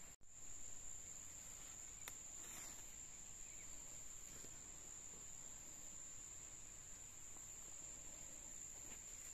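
Insects, crickets by their sound, singing in the undergrowth: one steady, unbroken high-pitched drone, faint.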